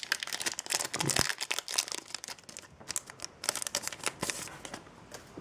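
Yu-Gi-Oh! booster pack's foil wrapper crinkling and tearing as it is pulled open and handled, a quick run of crackles that dies down near the end.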